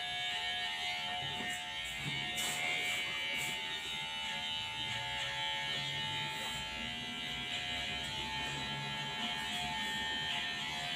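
Electric hair clippers running with a steady buzz, held at the side and top of a man's short hair.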